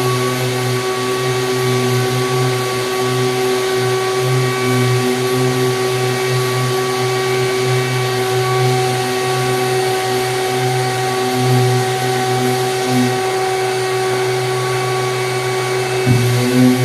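Mirka Leros long-reach drywall sander running steadily, its disc sanding heavy knockdown texture with the soft pad removed, together with the dust-extraction vacuum drawing through the hose. The sound is a steady whine made of several fixed tones.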